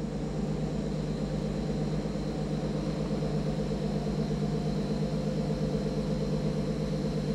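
Steady low hum of a fishing boat's engines and machinery, heard from inside the wheelhouse.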